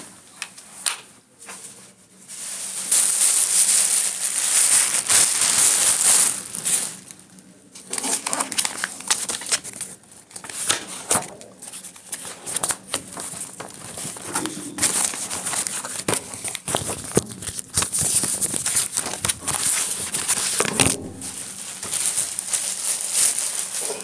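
Loud rustling and crackling of cloth rubbing against the recording microphone, with scattered knocks.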